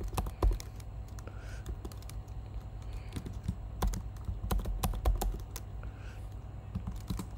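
Typing on a computer keyboard: an uneven run of key clicks, a few louder than the rest.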